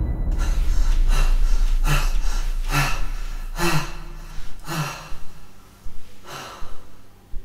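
A man breathing hard in loud, ragged gasps, about six of them, coming further apart toward the end, over a low steady rumble.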